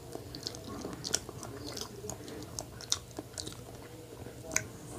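Close-up mouth sounds of a person chewing a soft chocolate-coated, marshmallow-filled donut: scattered wet smacks and clicks, with a sharper bite into the donut near the end.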